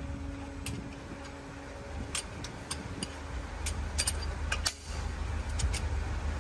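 Irregular sharp metallic clicks and clinks of hand tools working on truck engine parts, over a steady low rumble.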